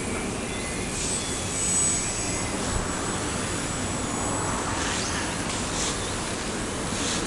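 RC model airplane's motor and propeller whining high as it flies, the pitch drifting a little about a second in, over a steady rushing background.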